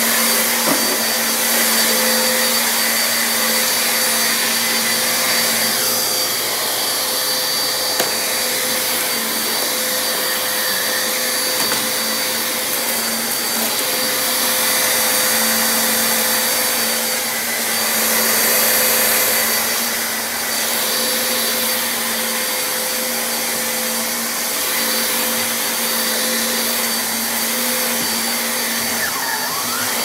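Dirt Devil Razor Pet upright vacuum running steadily as it is pushed over a hard plank floor: a constant motor hum and whine under a rushing airflow hiss.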